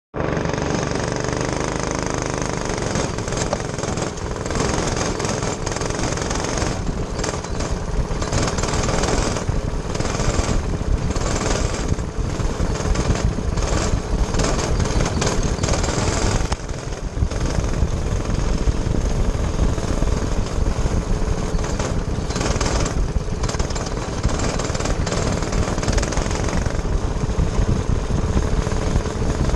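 Racing kart engine running hard from an onboard camera, a fast, rattly pulsing with a steady hum, easing off in short dips a few times as the kart goes around the dirt track.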